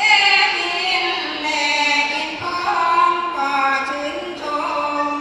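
Group of women singing Sarabhanya, a Thai Buddhist devotional chant, in long held melodic phrases that change pitch about once a second, sung into microphones.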